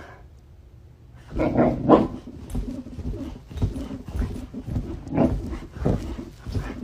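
A dog making a run of short, uneven vocal sounds, starting about a second in.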